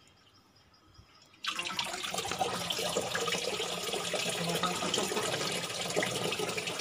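Water poured from a container into an air cooler's water tank, starting suddenly about a second and a half in and splashing steadily as the tank fills.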